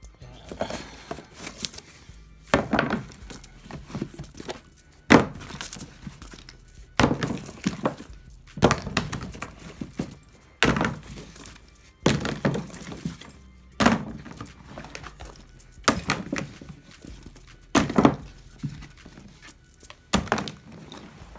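Plastic acrylic paint bottles and painting supplies set down one after another on a cloth-covered floor: about ten knocks roughly every two seconds, with music underneath.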